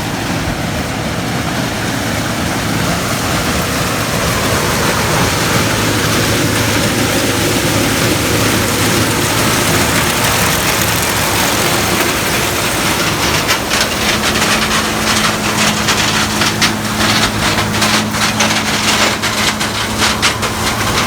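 Gleaner combine harvesting corn close by: a loud, steady engine and machinery drone. About two-thirds of the way in, a second steady hum joins and dense crackling sets in as stalks go through the corn head.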